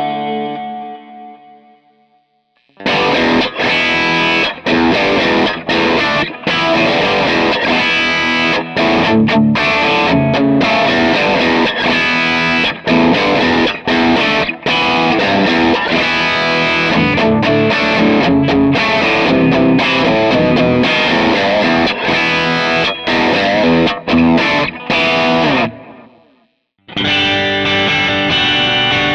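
Electric guitar played through a digital profile of a Bad Cat Hot Cat 40 amplifier with KT88 power tubes. A Stratocaster-style chord rings out and fades to silence in the first couple of seconds, then a Les Paul-style guitar plays a distorted riff with frequent short stops for about 23 seconds; after a second's pause, another guitar starts playing near the end.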